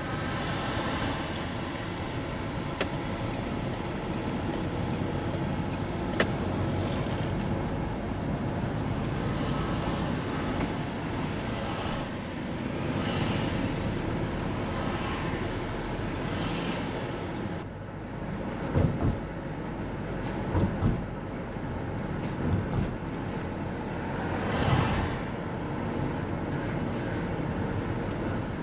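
A car driving through town, with steady road and engine noise. Other vehicles swish past now and then, and a few short thumps come in the second half.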